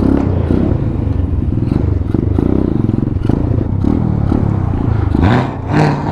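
Boom Vader 125cc single-cylinder mini bike engine pulling away through an unbaffled Akrapovič-style aftermarket exhaust, the revs rising and dropping several times as it gets under way.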